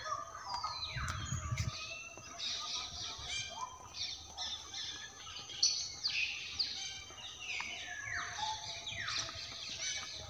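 A crowd of caged birds calling together, many short chirps and sharp descending calls overlapping one another.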